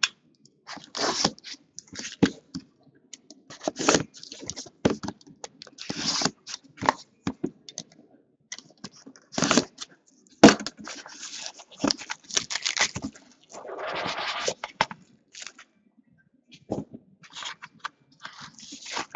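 Cellophane shrink-wrap crinkling and tearing as it is pulled off a sealed trading-card box, in a run of irregular rustles and rips with a longer stretch of crinkling about fourteen seconds in.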